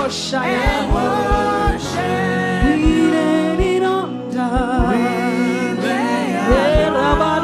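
Church worship music: sung melody lines over sustained chords, with short low drum hits keeping the beat.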